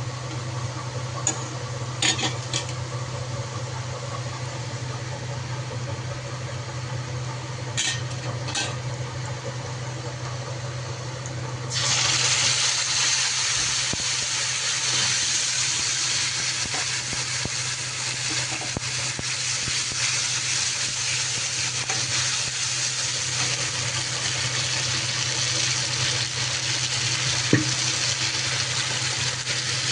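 Food frying in hot oil in a pan: a few light clicks over a low steady hum, then a loud sizzle starts suddenly about twelve seconds in and carries on steadily.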